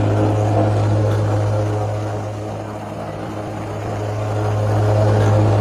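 A machine running steadily with a strong low hum, dipping slightly in loudness midway and rising again.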